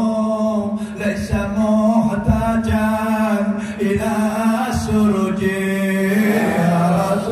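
A man's voice chanting an Islamic devotional song through a microphone and PA, in long held notes that bend slowly. A steady low tone runs underneath, with a few short thumps.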